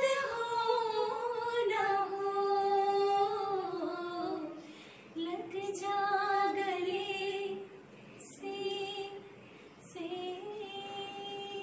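A woman singing a slow melody unaccompanied, holding long notes and sliding between pitches, in phrases with short breaths between them.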